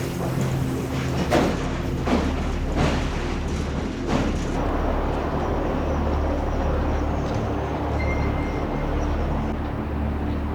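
Train running: a steady rumble with a low hum, and a few sharp clacks over the first four seconds.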